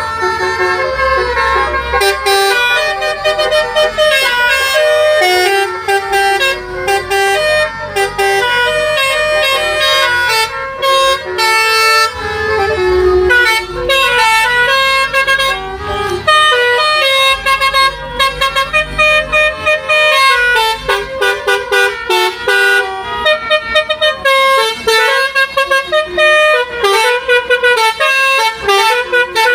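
Telolet multi-tone horns playing a tune, one quick note after another with short breaks between phrases.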